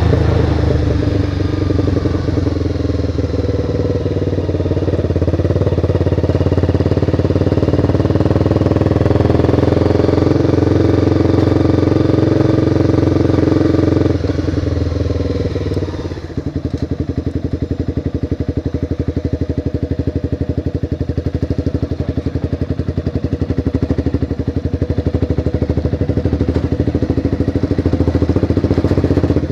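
Motorcycle engine running at a steady speed, then about halfway through the throttle closes and the engine drops to a lower, quieter run as the bike slows.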